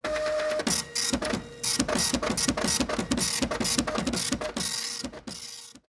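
Rhythmic mechanical clatter, about five strokes a second over a faint steady tone, cutting off abruptly near the end.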